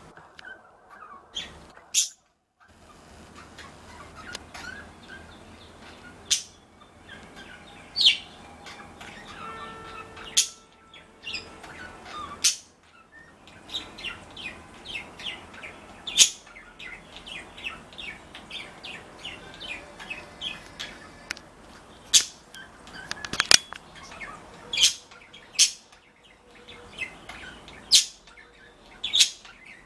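Pet budgies chirping and chattering: sharp, loud chirps every second or two over stretches of quieter, rapid warbling.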